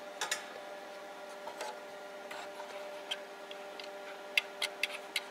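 Open-frame relay in a solid-state linear amplifier worked by hand, its spring-loaded armature snapping the contacts with small sharp clicks: a few scattered ones, then a quick run of about five near the end. A faint steady hum runs underneath.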